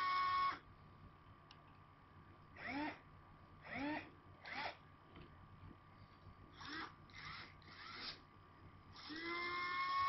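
Small electric gear motors of a joystick-driven hobby robot arm whining as it is moved in jogs. A run cuts off about half a second in, then several brief whines each rise in pitch as a motor spins up, and about a second before the end a longer run starts, rising in pitch and then holding steady.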